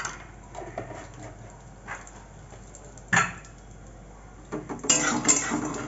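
A metal spatula stirring roasting peanuts in a metal kadai, the nuts rattling and the spatula scraping the pan, starting near the end. Before that, only a sharp knock about three seconds in.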